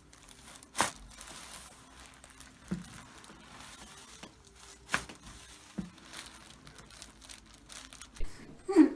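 Sharp cracks and pops from chiropractic adjustments: a loud one about a second in and another about five seconds in, with fainter ones between and a pair near the end.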